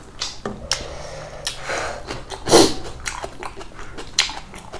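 Close eating sounds: chewing, biting and mouth smacks of people eating rice and chicken by hand, with scattered small clicks and one louder burst about two and a half seconds in.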